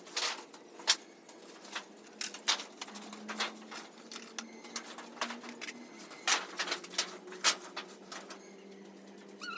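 Young broiler chickens: irregular sharp taps and clicks, with a faint steady hum underneath.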